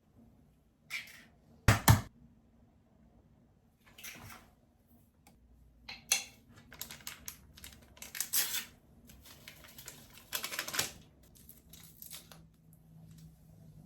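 Clattering handling noises: scattered clicks and taps, with two sharp knocks about two seconds in and a denser run of clatter and rustling later on.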